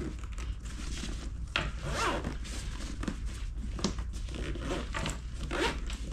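Zipper being drawn closed on a soft fabric pet carrier bag in a series of short, scratchy pulls, with the fabric rustling as the panel is folded in.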